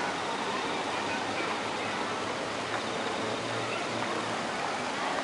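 Steady rushing background noise with faint, indistinct voices.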